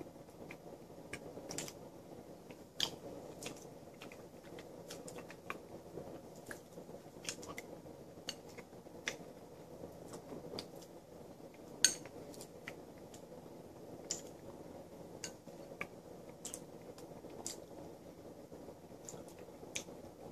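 A spoon clicking and scraping against a bowl, with chewing and biting between. The sharp clicks come irregularly, about one a second, and one past the middle is louder than the rest.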